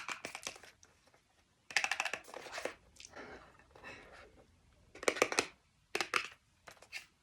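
Packaging being handled: crinkling and clicking in several short bursts with quiet gaps between.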